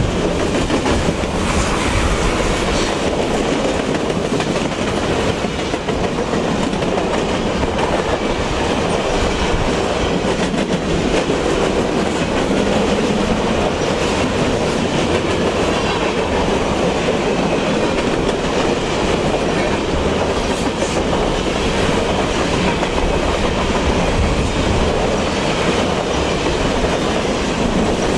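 Freight train of covered hopper cars rolling past close by: the steel wheels on the rails make a steady, loud rumble.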